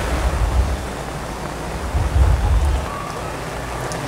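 Heavy rain falling steadily, with a low rumble that swells about two seconds in and dies away within a second.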